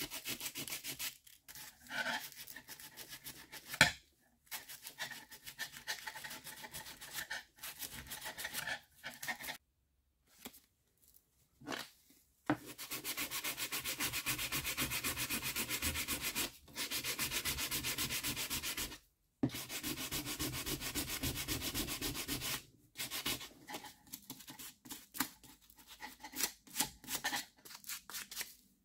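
Hand sanding a screwdriver with sandpaper in quick back-and-forth rubbing strokes: first on its wooden handle, and near the end on its metal shaft with the paper wrapped around it. The rubbing comes in spells broken by short pauses, steadiest and fastest through the middle.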